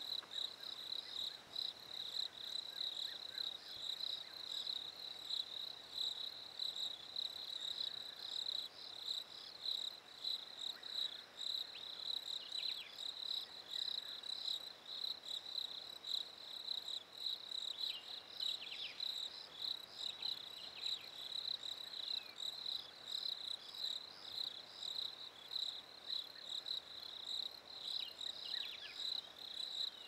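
Crickets chirping in a steady, fast pulsing trill, with a few faint short falling notes now and then.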